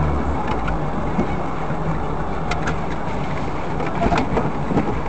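Running noise of a car as picked up by its dashcam: a steady engine hum over low road rumble, with a few faint clicks around the middle and near the end.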